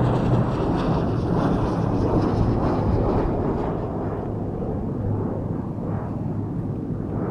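Strong gusty wind buffeting the microphone, with a steady low hum underneath, easing slightly in the second half.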